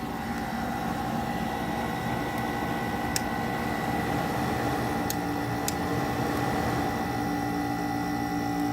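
Haier window air conditioner running: a steady rush of air from its fan with a steady hum underneath, and a few faint ticks about three and five seconds in.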